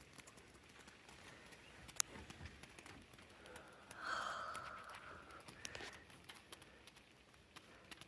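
Quiet close handling sounds: faint scattered clicks and rustles, a single sharp click about two seconds in, and a brief breathy sound about four seconds in.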